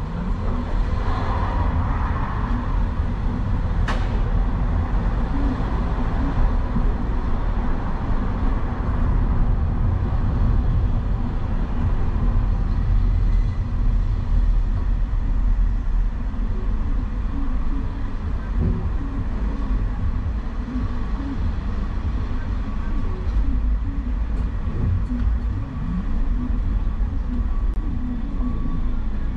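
A vehicle driving on city streets: a steady low rumble of engine and road noise, with one sharp click about four seconds in.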